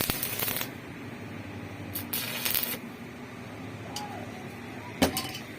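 Two short bursts of hissing noise, about two seconds apart, then a sharp click near the end, over a steady low hum.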